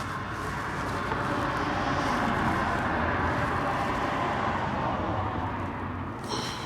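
A vehicle passing by: a steady rushing noise that swells to its loudest mid-way and then fades.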